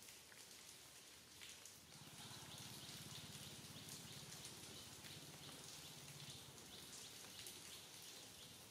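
Faint light rain, with scattered drops falling on leaves. A low hum comes in about two seconds in and fades out later.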